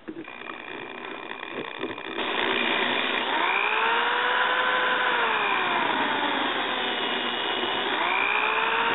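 Electric drill boring into the plastic CO2 cartridge adapter of a home draft beer dispenser to drill out its retaining pin. The drill runs softly at first and much louder from about two seconds in. Its pitch rises, holds, then falls, and rises again near the end.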